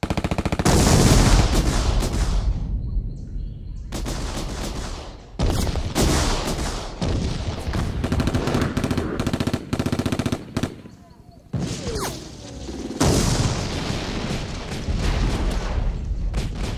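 Automatic gunfire from a game trailer soundtrack, in long rapid bursts broken by short pauses about three, five and eleven seconds in.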